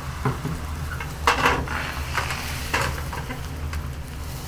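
Beaten egg sizzling in a non-stick frying pan while chopsticks scrape and tap against the pan, spreading and rolling a tamagoyaki. The strokes come at irregular moments, the loudest about a second and a half in.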